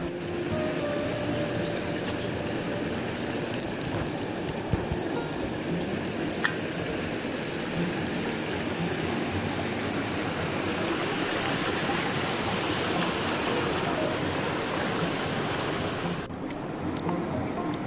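Shallow stream running over rock ledges and small cascades, a steady rush of water with a few faint clicks.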